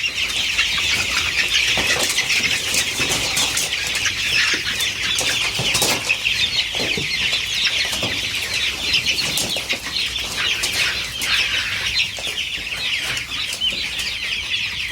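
A large flock of about 800 chickens in a closed coop: a dense, steady chorus of overlapping clucks and peeps, with wing flapping and scattered short sharp sounds among them.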